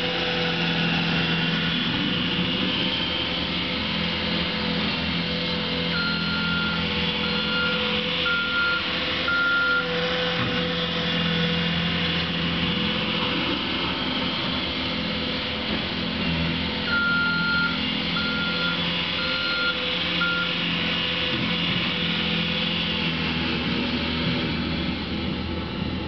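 Bobcat skid-steer loader's engine running steadily while it pushes snow. Its backup alarm beeps in two runs of about four beeps each, one about six seconds in and one about seventeen seconds in, as the loader reverses.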